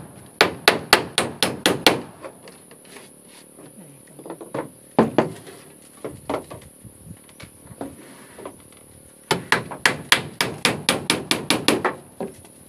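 Steel hammer nailing wooden floorboards: a quick run of blows at the start, a few single knocks in the middle, and a longer quick run near the end.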